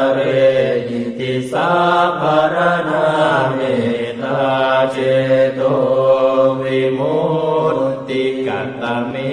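Buddhist monk chanting Pali verses, one male voice on a near-steady recitation pitch, in phrases of one to two seconds broken by short breaths.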